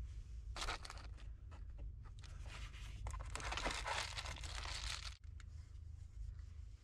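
Crinkling and rustling of material as someone shifts about inside the back of a Jeep: a short spell about half a second in and a longer one from about three to five seconds in, over a steady low rumble.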